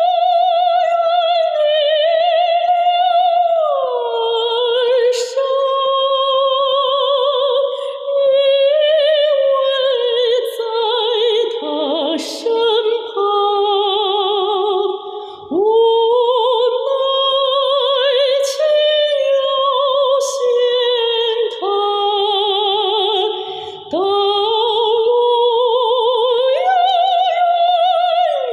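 A woman singing unaccompanied in Chinese, long held phrases with a clear vibrato, as a demonstration of a breath-supported, focused singing tone.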